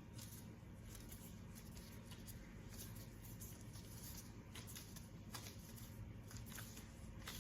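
Faint rustling and light taps of hands handling cold pastry dough on a floured worktop, over a low room hum.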